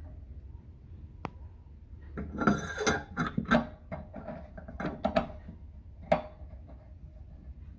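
Metal tools and pipe fittings clinking and rattling as they are handled: a single click about a second in, a burst of clatter a couple of seconds in, then a few sharper clinks later on.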